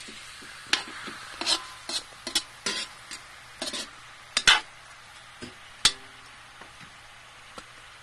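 A spatula stirring and scraping whole frogs around a metal wok, in irregular strokes over a light sizzle of frying. The loudest scrape comes about four and a half seconds in, and the strokes thin out after about six seconds.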